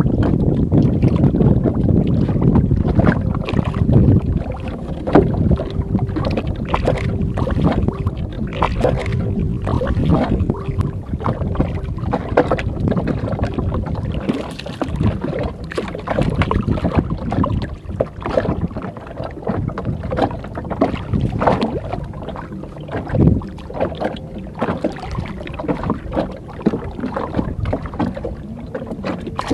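Wind on the microphone and water noise aboard a small wooden outrigger canoe, with many irregular knocks and clicks from the hull and fishing tackle while a fish is played on a light spinning rod.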